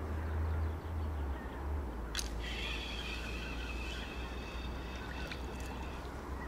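Steady low wind rumble on the microphone. About two seconds in comes a click, then a steady whir from the feeder rod's spinning reel for about three and a half seconds as a hooked fish is wound in.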